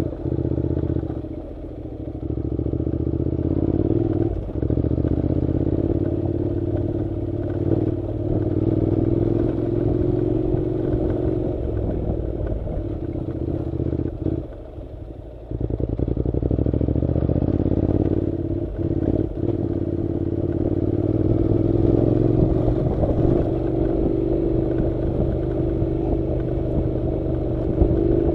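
Honda NC700 motorcycle's parallel-twin engine running while riding a dirt road, over a low rumble. The engine note eases off briefly twice, about a second and a half in and again near the middle.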